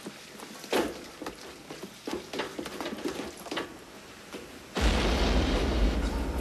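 Scattered knocks and metal clinks of soldiers' boots and gear. About five seconds in, a sudden loud blast with a deep rumble starts; it runs for over a second and fades.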